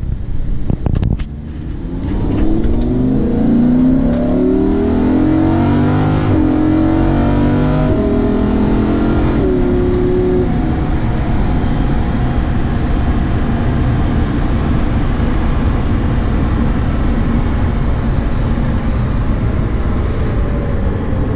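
Lamborghini Huracán's V10 engine heard from inside the cabin under full-throttle acceleration, its pitch climbing and dropping back through several quick automatic upshifts. After about ten seconds the shifts stop and a steady, loud drone of engine, wind and tyres at high speed takes over.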